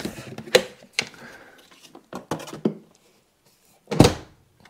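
Plastic lid and latches of an ICECO portable fridge-freezer being unlatched and handled: a few short clicks and knocks. About four seconds in there is one heavy thump.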